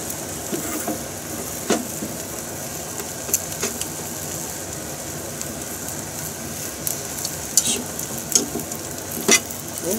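Beaten egg sizzling steadily in an oiled rectangular tamagoyaki pan over a gas flame, with several sharp taps of a utensil against the pan.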